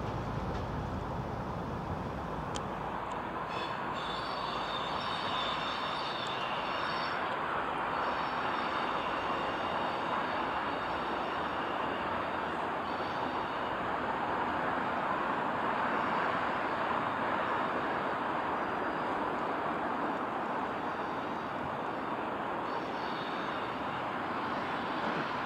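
Diesel engineering train running slowly across pointwork: a steady rumble of engine and wheels. A thin high-pitched wheel squeal comes in about three to eight seconds in and again near the end.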